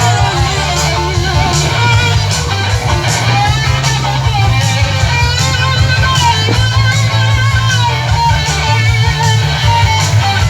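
Loud live music with guitar and a heavy bass, playing steadily with a regular beat.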